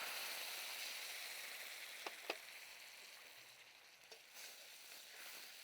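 Hot oil tempering in a kadai sizzling as cooked split moong dal is mixed in, the sizzle slowly dying down. Two light clicks of the spoon against the pan about two seconds in.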